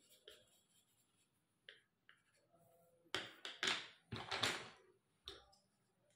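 Colored pencils being handled and set down among other pencils on a wooden desk. A few faint clicks come first, then a run of loud scraping clatters about halfway through, and a single click near the end.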